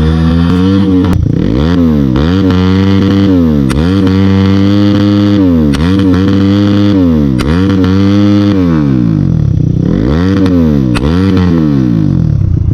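CX250R motorcycle with its exhaust dB killer removed, its engine blipped hard again and again so the note rises and falls about every one and a half to two seconds, with sharp cracks and pops from the exhaust: deliberate misfires (backfire pops) from the open, unbaffled exhaust.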